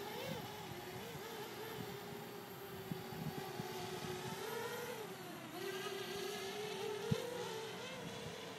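Parrot Bebop quadcopter's propellers whining in flight, the pitch wavering up and down as the drone manoeuvres. A single sharp click about seven seconds in.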